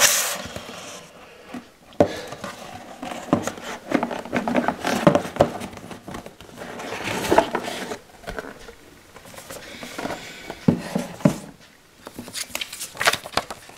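Hands handling a cardboard board-game box: the box being turned and its lid lifted off, then paper leaflets and card sheets inside rustling. Irregular rubs, taps and clicks of cardboard and paper.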